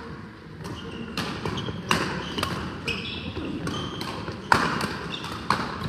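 Badminton rackets striking a shuttlecock in a fast doubles rally: a quick series of sharp hits, the loudest about four and a half seconds in, with court shoes squeaking on the sports hall floor between them.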